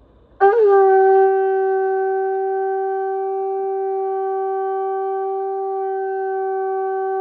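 Conch shell horn blown in one long held note. It starts suddenly about half a second in with a brief wobble in pitch, is loudest for the first second, then holds a steady pitch.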